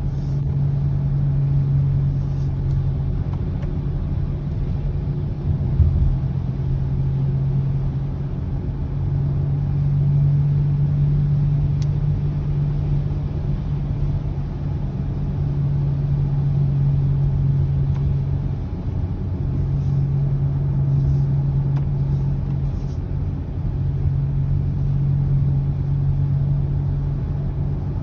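Low humming noise in a 2020 Subaru Ascent: a steady low drone that swells and fades every few seconds over a low road rumble, reported by the owner as an abnormal noise.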